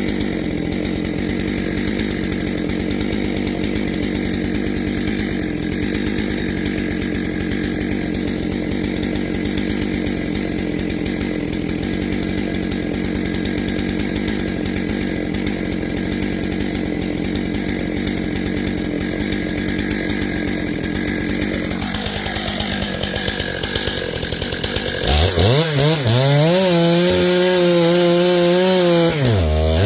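Stihl MS 661 C two-stroke chainsaw cutting through oak at a steady, loaded engine note. In the last few seconds the engine note turns louder and clearer, its pitch wavering up and down.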